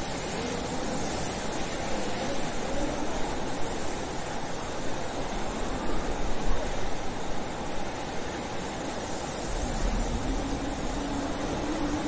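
Blizzard wind blowing steadily as a dense rushing hiss, with a low howling tone that wavers up and down and swells near the end.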